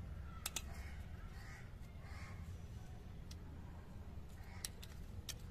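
Small sharp plastic clicks as a screwdriver pries a cordless phone's LCD display module out of its clips on the circuit board: a double click about half a second in, then a few single clicks in the second half. A bird calls a few times in the background.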